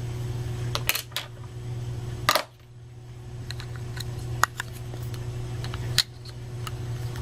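Sharp plastic clicks and knocks from handling a GoPro HD Hero 960 camera while fitting its battery: about five scattered clicks, the loudest about two seconds in. A steady low hum runs underneath.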